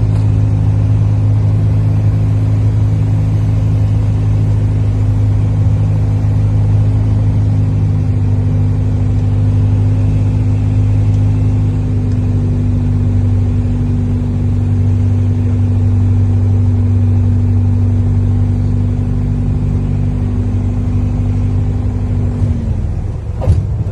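Aircraft engines droning steadily inside the passenger cabin: a low hum with a steady higher tone. Near the end the higher tone drops away, and a sharp click follows.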